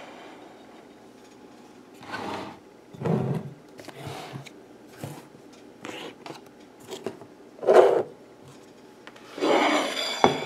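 Handling noise: a series of short, irregular rubbing and scraping noises against the microphone as a handheld camera is moved about.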